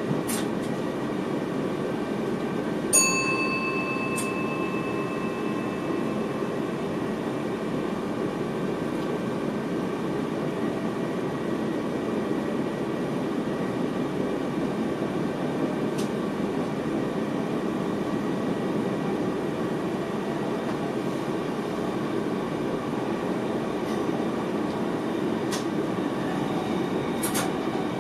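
Cab of an NS VIRM double-deck electric train running along the track: a steady rumble of the wheels and running gear. About three seconds in, a single loud chime sounds in the cab and fades over a second or two. A few faint ticks come later.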